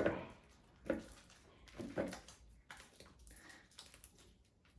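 Hands kneading sticky borax slime in a bowl: a few short, soft squelches and clicks about a second apart, then only faint ticks.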